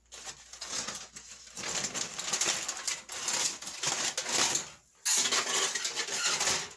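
Aluminium foil crinkling loudly as the cover is peeled off a baking pan and lifted away, with a brief pause about five seconds in.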